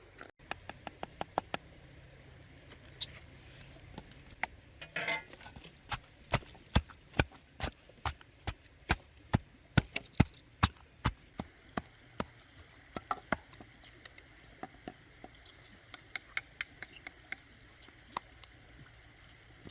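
Knife chopping on a wooden cutting board: a long run of sharp strikes, loudest and most regular in the middle at about two to three a second, sparser near the start and end, with a short scrape about five seconds in.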